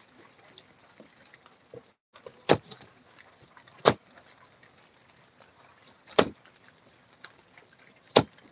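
Knife chopping through a hard raw sweet potato, striking a cutting board with four sharp knocks a second or two apart.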